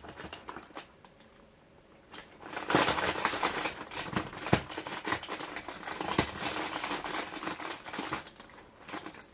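Advent calendar packaging crinkling and rustling with many small clicks as a compartment is opened and a Christmas bauble is taken out, starting about three seconds in.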